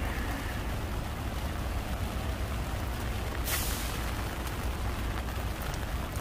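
Steady outdoor noise of rain and city traffic with a low rumble, and a short sharp hiss about three and a half seconds in.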